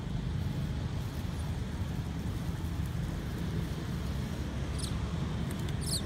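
Steady low outdoor rumble, with two brief faint high crackles near the end.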